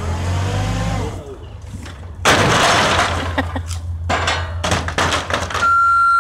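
Tall stacks of plastic crates collapsing: a low hum, then a loud crash about two seconds in as the crates tumble down, followed by scattered knocks of crates and fruit landing. A steady high beep starts near the end.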